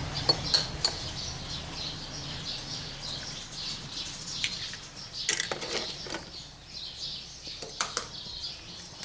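Eggs tapped against the rim of a china bowl and cracked open: a few sharp clicks of shell on ceramic, three in quick succession near the start and more in the second half. Birds chirp in the background.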